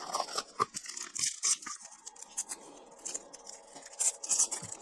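Nasal strip packaging being handled and opened: a run of short, crisp rustles and crinkles.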